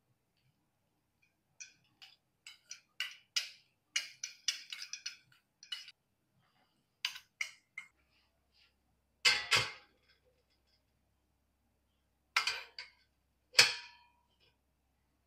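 A wooden spoon scraping and tapping rice into small stainless steel bowls in a string of light clicks, then loud metallic clanks, three in all, as the steel bowls are set down in a stainless steel steamer basket.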